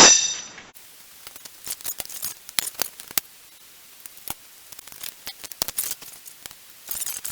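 A sharp metal clank that rings briefly, then scattered light clicks and ticks of metal tools and parts being handled.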